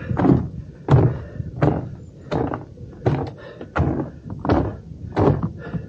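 Hiker's footsteps thudding on stair steps while climbing at a steady pace, about three steps every two seconds.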